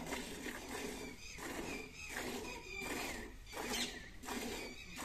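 Buffalo being milked by hand: jets of milk hissing into a pail, one spurt with each squeeze, in a steady rhythm of about three every two seconds.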